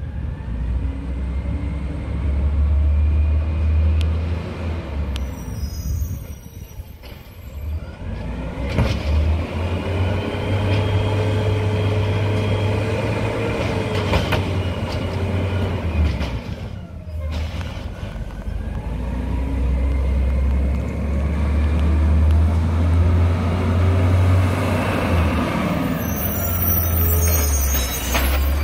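Peterbilt 320 garbage truck with an Amrep automated side loader, its LNG engine revving up and back down three times as the hydraulic arm lifts and dumps recycling carts.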